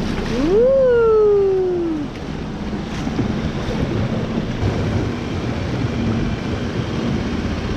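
Small dinghy outboard motor running slowly, with sea and wind noise. About half a second in, a loud long call rises in pitch and then slowly falls away.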